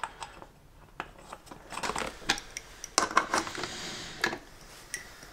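Scattered clicks and taps of a plastic motorcycle chain guard being pushed into place on the swingarm, then a small hand ratchet clicking as it runs a mounting bolt in, about three seconds in.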